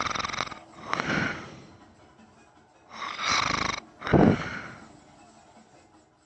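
A man snoring in his sleep: two breaths about three seconds apart, each a pair of snoring sounds in quick succession, the second breath the louder.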